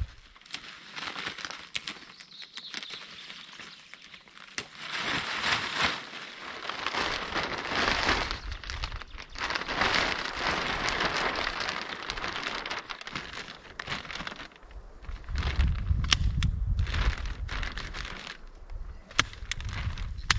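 A green plastic tarpaulin and a large clear plastic sheet crinkling and rustling with sharp crackles as they are lifted, shaken out and spread into a pit. Low rumbling joins near the end.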